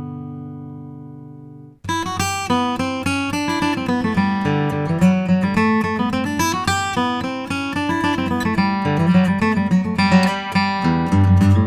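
Gibson Southern Jumbo True Vintage acoustic guitar (red spruce top, solid mahogany back and sides) played solo: a chord rings and fades, cuts off suddenly just under two seconds in, then a lively passage of picked notes and chords with a moving bass line begins.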